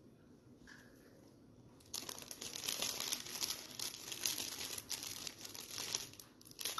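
Clear plastic wrapping crinkling as a piece of cake is wrapped by hand, starting about two seconds in.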